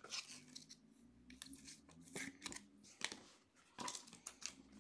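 A scatter of faint clicks and rustles from trading cards in plastic sleeves and hard holders being handled and shuffled.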